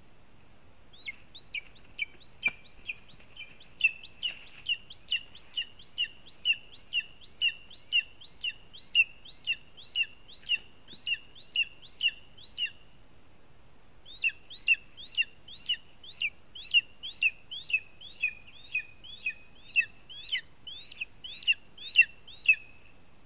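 Juvenile lesser spotted eagle calling: a long, rapid series of short, high yelping notes, about two a second. The series comes in two runs, with a pause of about a second and a half near the middle.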